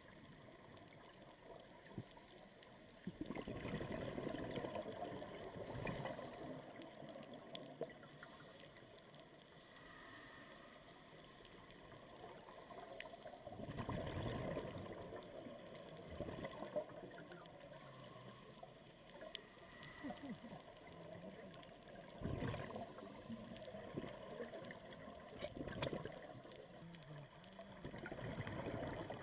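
Scuba regulator exhaust bubbles heard underwater: a bubbling surge each time a diver breathes out, several times, some seconds apart, over a quieter steady water noise.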